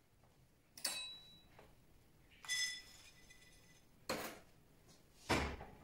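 Metal cookware clanking and clinking as a skillet is handled: a sharp clink about a second in, a ringing metallic clang midway, another knock, and a heavier clunk near the end.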